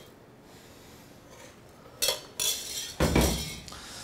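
Metal kitchenware clinking: two light clinks about two seconds in, then a louder knock with a short ring about a second later, as a stainless-steel bowl and sieve are handled against a glass jar and steel worktop.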